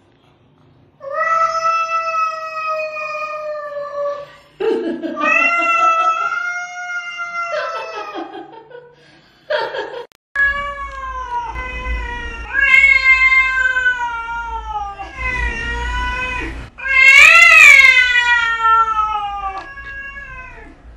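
Domestic cats yowling in a long series of drawn-out meows, one after another, each one to three seconds long, as they squabble and paw at each other. The loudest call comes near the end and rises and falls in pitch.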